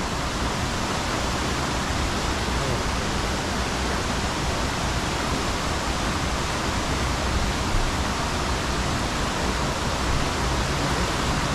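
Steady rush of a mountain stream cascading over rocks into a pool, an even hiss of water with no breaks.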